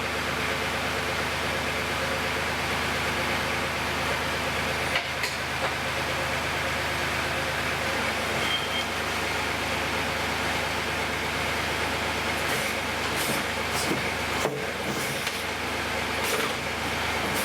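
Heavy equipment engine running at a steady speed, with a couple of short clanks partway through.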